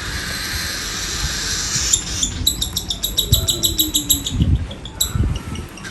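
Baby cockatiel begging for food: a rasping hiss for about two seconds, then a fast run of short chirps, about seven a second, that stops near the end.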